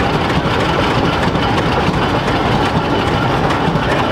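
Coal-fired steam traction engine working along under steam, a steady mechanical clatter of its engine and gearing.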